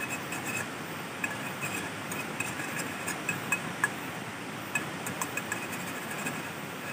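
A metal fork scraping and tapping in a small nonstick frying pan as eggs are stirred, in short sharp clicks over a steady sizzling hiss from the pan on a butane canister stove.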